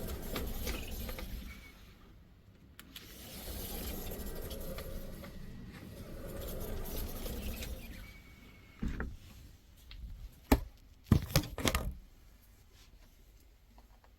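Three swells of rushing noise, each rising and fading over a couple of seconds, then a quick cluster of sharp knocks and clatter near the end.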